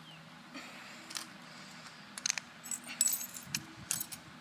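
Light clicks and clinks of a broken flip phone's plastic and metal pieces being handled and stood upright: a few scattered taps, several in quick succession about three seconds in.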